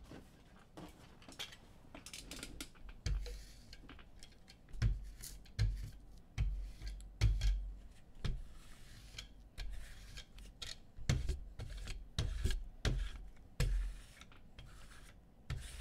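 Objects being handled on a tabletop: scattered knocks and deep bumps, with rubbing and scraping in between.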